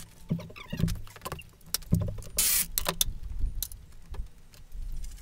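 Metal clinking and rattling of a motorcycle drive chain and hand tools as the chain is worked onto the front sprocket, with irregular knocks and a brief hiss about two and a half seconds in.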